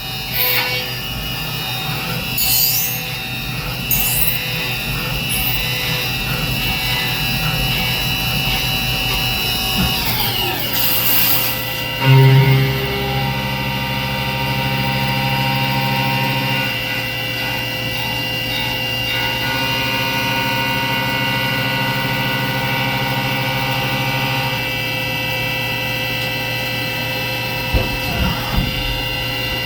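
CNC milling machine spindle running and cutting billet aluminium: a steady machine whine made of several high tones. About ten seconds in the pitch slides down, and a deeper hum joins for a few seconds just after.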